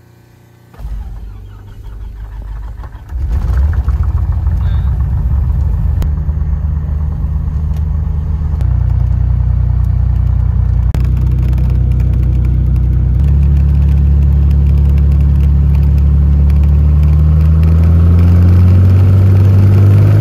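Small propeller plane's piston engine starting up, heard from inside the cabin: it turns over about a second in, catches loudly about three seconds in, then runs steadily, speeding up in steps.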